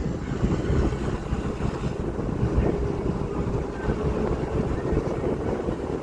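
Wind buffeting the microphone over the steady rumble of a moving vehicle, with a faint steady hum underneath.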